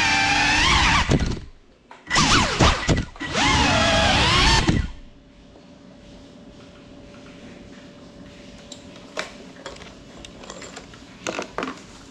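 GEPRC Cinelog35 cinewhoop drone's motors and ducted propellers whining, pitch rising and falling with the throttle; the whine drops out briefly about a second and a half in, spins back up, then stops suddenly about five seconds in as the drone sits on the floor. After that, only a faint steady hum and a few light clicks.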